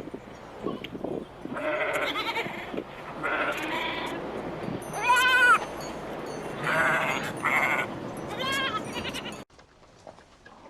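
Bleating livestock: about six separate quavering bleats, the loudest near the middle, cut off abruptly near the end.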